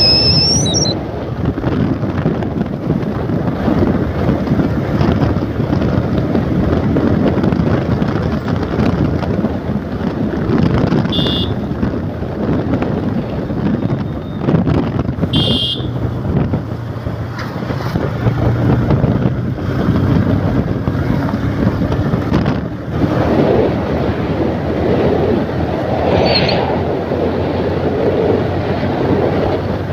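Wind buffeting the microphone over the steady rumble of an open vehicle riding along a road. A few short, high sounds cut through it, twice near the middle and once near the end.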